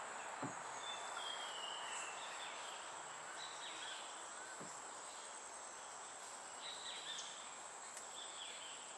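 Steady high-pitched insect drone with short falling bird calls every second or two. Two brief low knocks, one about half a second in and one near the middle.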